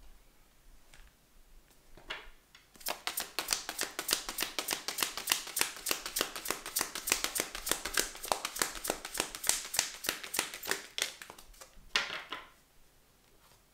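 A deck of cards being shuffled by hand: a fast, even run of card slaps that stops about eleven seconds in. Then a card lands on the table with a short slap and rustle.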